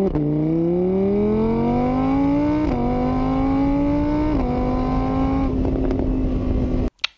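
Motorcycle engine accelerating up through the gears: the pitch climbs, drops back twice at gear changes, then holds steady before cutting off suddenly near the end, followed by a short click.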